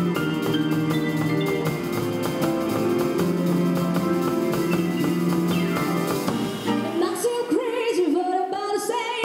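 A string ensemble of violins, cellos and double bass plays sustained chords over a steady ticking percussion rhythm. About seven seconds in, the low accompaniment thins out and a woman's voice comes in, singing a wavering, sliding line.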